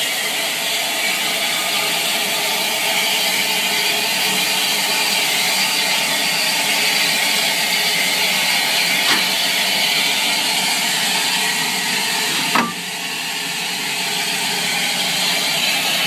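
Steady loud steam hiss from the Southern Railway Bulleid Battle of Britain class steam locomotive 34070 Manston, standing. A faint sharp click about nine seconds in and a louder metallic knock about twelve and a half seconds in.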